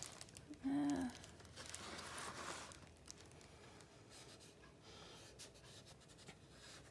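Charcoal scratching and rubbing on drawing paper under the hand, loudest about a second and a half to three seconds in, then fainter strokes. A brief murmur of voice just under a second in.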